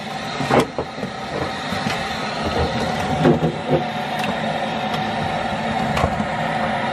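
Steady hum with a few light knocks and taps as a metal inspection camera pole is handled and worked into a wall cavity behind a bathtub.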